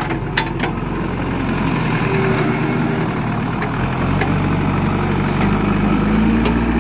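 Diesel engine of a JCB 3DX backhoe loader running as the machine works with its front loader bucket, the engine note unsteady at first and steadying about four seconds in. A few sharp knocks sound in the first second.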